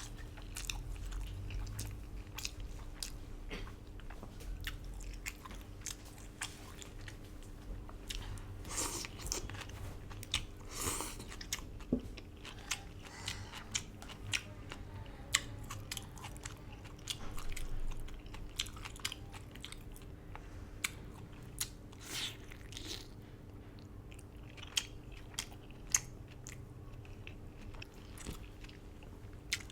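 Close-miked eating of herbal-braised duck noodle soup and duck leg: chewing and biting, with many short sharp mouth clicks and smacks, over a faint steady hum.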